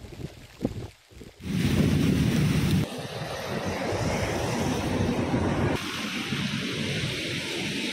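Wind rushing over the microphone outdoors: a steady, even noise that starts abruptly about a second and a half in, heaviest and loudest in the low end at first. It then changes character twice.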